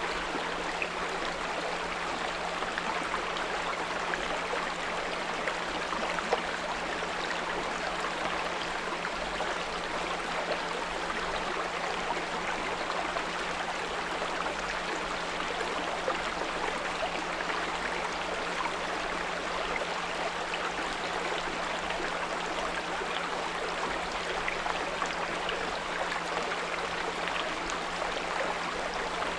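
Small brook running steadily over stones, with a steady low 174 Hz pure tone held underneath it.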